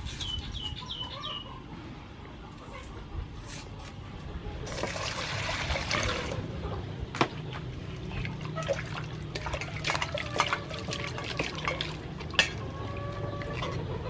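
Green onions being washed by hand in a stainless steel bowl of water: sloshing, trickling and small splashes, with a louder rush of water about five seconds in.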